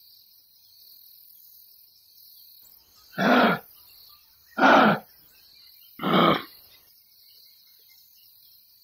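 Kangaroo giving three short, rough calls about a second and a half apart, over a faint steady chirring of insects.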